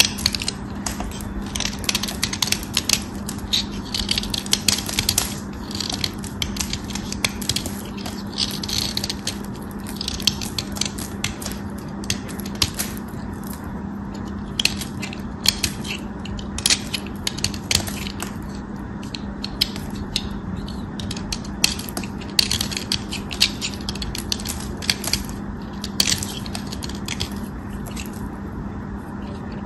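A craft knife shaving slices off a bar of dry, starch-dusted soap: a dense, irregular run of crisp, crunchy scrapes and crackles as the blade cuts through, with a low steady hum underneath.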